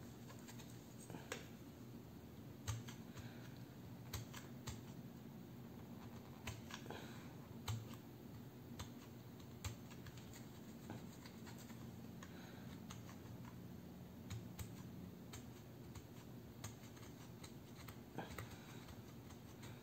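Small knife blade scraping and clicking against the plastic housing of a hand blender: faint, irregular clicks and short scrapes.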